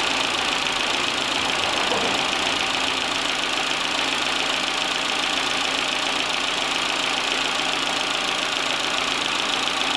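Steady, unchanging mechanical running noise with a strong hiss, with no starts, stops or changes.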